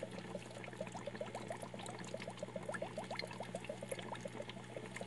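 Aquarium water bubbling and trickling: a steady stream of quick little rising blips, over a steady low hum.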